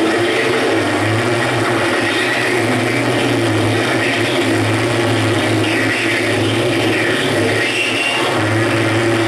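Live noise music from a table of chained effects pedals: a steady low drone under a dense, shifting wash of distorted hiss with faint wavering high tones.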